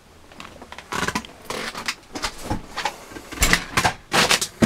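Paper and plastic rustling and crinkling as they are handled close to the microphone, in uneven bursts that are loudest near the end.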